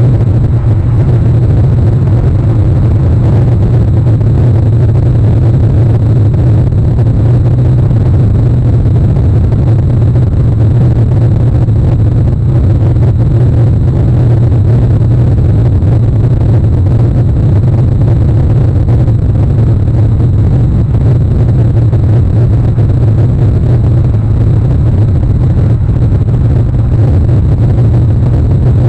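Loud, steady low rumble of wind buffeting an outdoor webcam microphone, with no separate events.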